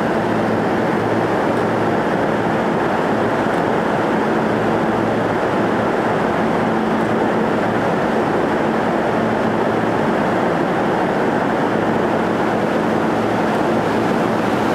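Station emergency alarm buzzer on a subway platform, sounding as one steady, unbroken low buzz.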